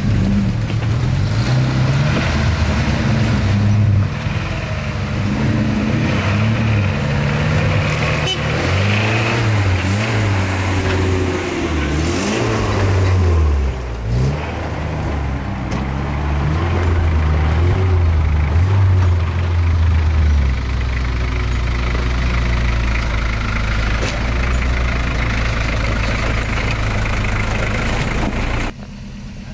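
Off-road 4x4 truck engine revving up and down, then running at a steady, lower pitch about twenty seconds in. The sound drops off abruptly just before the end.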